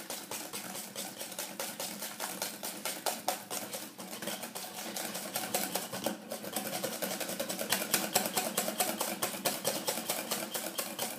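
Wire whisk beating butter, sugar and egg into a creamy batter in a glass bowl, its wires clicking rapidly and evenly against the glass.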